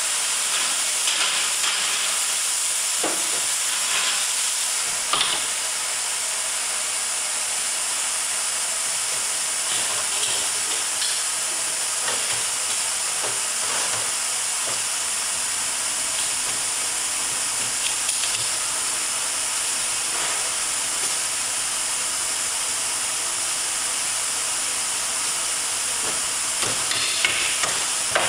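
Steady hiss of steam from wood-steaming chests, with a few short knocks and clunks of wood and metal being handled, a cluster of them a few seconds in and again near the end.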